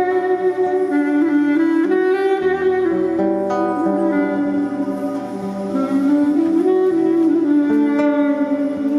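Music: sustained melodic notes over a low bass line that changes pitch every second or two.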